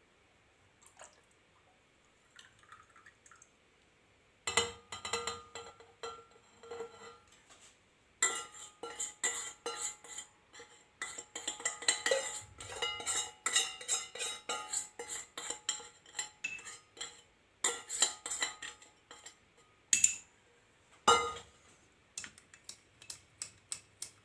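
Metal spoon clinking and scraping against a pot and a glass jar as a warm oil-and-Vaseline rub is spooned into the jar, in quick irregular runs of ringing clinks. Two louder knocks come near the end, then light quick ticking.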